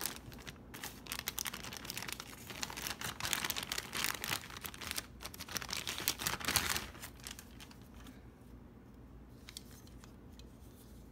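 Thin clear plastic toy bag crinkling and rustling as hands open it and pull the toy out. The crackling stops about seven seconds in, leaving only a few faint handling clicks.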